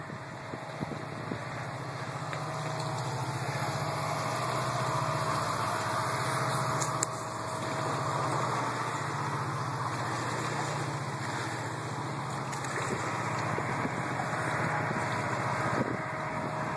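A steady low engine drone with a rushing noise over it.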